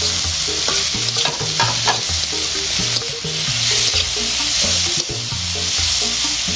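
Sliced bitter melon and anchovies sizzling as they are stir-fried in an aluminium wok, with a metal spatula scraping and tapping the pan. Background music with steady low notes runs underneath.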